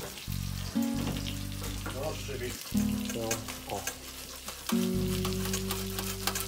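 Cooked beetroots being grated on two metal box graters over a steel bowl, with quick rasping scrapes. Background music with held low notes plays under it.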